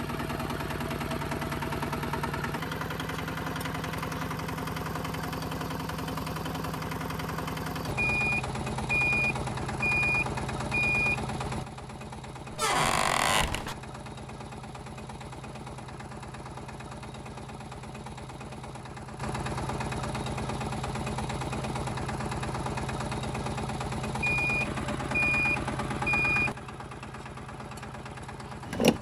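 Steady engine-like hum of a DIY mini tractor, its pitch shifting abruptly several times. Short beeps come about a second apart, four of them about a third of the way in and three near the end, and a brief whoosh falls about midway.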